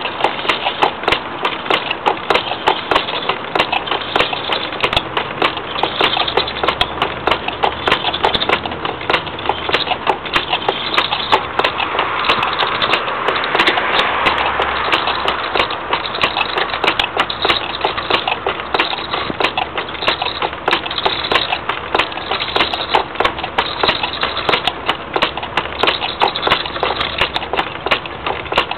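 A gouge roughing a spinning wood blank on a homemade foot-powered treadle lathe: a rapid, continuous run of wooden knocks and scraping. The blank is still out of round at this roughing stage, so the tool strikes its high spots.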